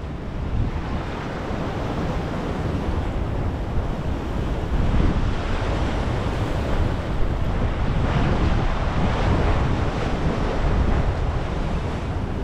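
Ocean surf washing and breaking over an inlet's shoals, with wind buffeting the microphone in a steady low rumble.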